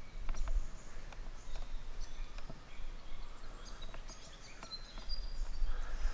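Forest birds chirping and calling in short high notes, with scattered sharp clicks among them. Wind rumbles on the microphone underneath and grows stronger near the end.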